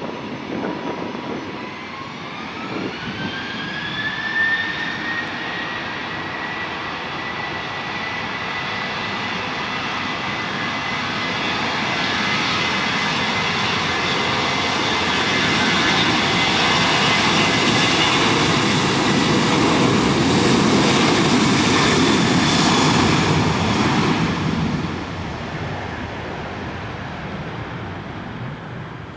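Boeing 737-700's two CFM56 turbofans spooling up to takeoff thrust. A whine rises in pitch over the first few seconds, then the jet noise grows as the airliner rolls down the runway. It is loudest about two-thirds of the way in and drops off near the end.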